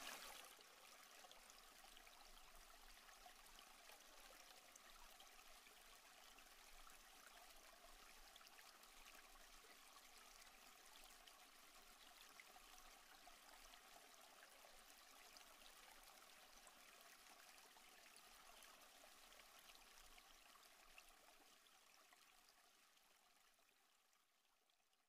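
Faint, steady sound of flowing stream water, fading out over the last few seconds.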